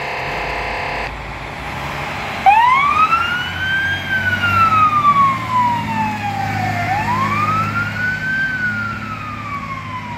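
Fire truck siren starting abruptly and wailing: a quick rise in pitch followed by a slow fall, repeating about every four and a half seconds, over the low running of the truck's engine. Before it, a steady multi-tone sound cuts off about a second in.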